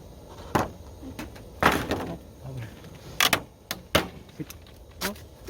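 A package being pried at by hand and not coming open: a run of sharp clicks and knocks, about six in all, with a short rustling burst about a second and a half in.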